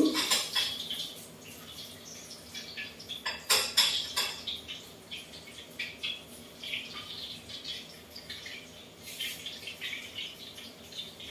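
Pans and metal utensils clattering at a kitchen stove while frying, with a quick run of sharp knocks about three and a half seconds in and lighter clinks and scrapes between.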